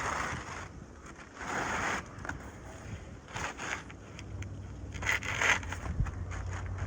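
Asphalt roof shingles scraping and crackling in several short bursts as a replacement shingle is worked into place.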